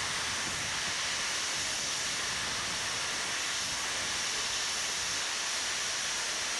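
Steam locomotive letting off steam: a steady, loud hiss with no exhaust beats.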